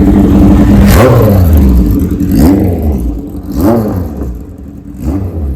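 1978 Kawasaki KZ1000 inline-four with a Kerker exhaust and Wiseco 1045 big-bore kit, revving in four sharp rises and falls. It grows quieter over the last couple of seconds.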